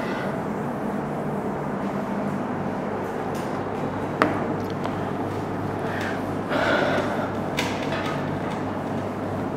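Cloth wiping a whiteboard, a few short rubbing swishes about six to seven and a half seconds in, over a steady low background hum. A single sharp click comes about four seconds in.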